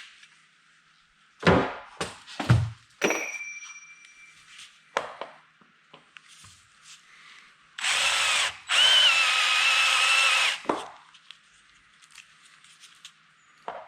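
Power drill running for about two and a half seconds, with a brief stop partway, drilling the heads off the metal fasteners of a roof bracket. Before it come a few sharp metal knocks, one of which leaves a short ring.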